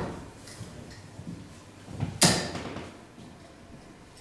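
A steel-tip dart thudding into a Winmau Blade sisal bristle dartboard about two seconds in, a single sharp hit. The tail of the previous dart's hit fades out at the very start.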